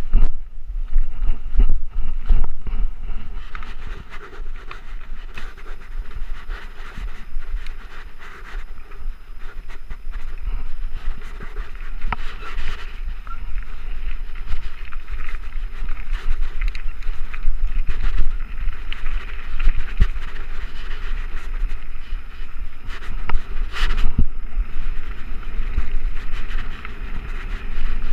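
Trek Rumblefish Pro mountain bike ridden fast down a dirt singletrack: wind buffets the chest-mounted camera's microphone in a steady low rumble, over the rush of the tyres on dirt, with frequent sharp clicks and knocks as the bike rattles over bumps.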